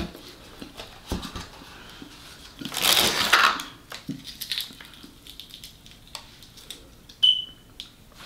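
A crispy fried cream cheese wonton crackling loudly for about a second as it is pulled apart by hand, among small clicks and crunches. A short high beep sounds near the end.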